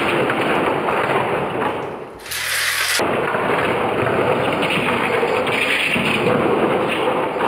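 Toy slot cars racing round a plastic double-loop track: small electric motors whirring and the cars rattling along the track pieces, a steady rushing noise that drops out for a moment about two seconds in.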